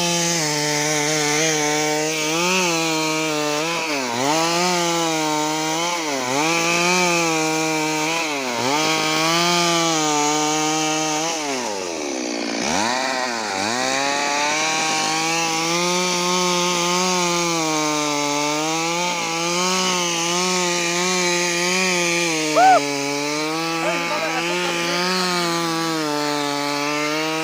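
Stihl MS 382 two-stroke chainsaw running at high revs while cutting wooden planks. Its pitch sags again and again as the chain bites into the wood, most deeply a little before halfway through.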